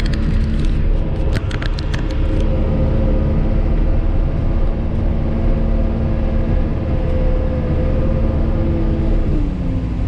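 Backhoe loader's diesel engine running steadily under load while pushing wet, heavy snow with a front snow pusher, heard from inside the cab. A short run of clicks and knocks comes in the first couple of seconds, and the engine note drops near the end as it slows.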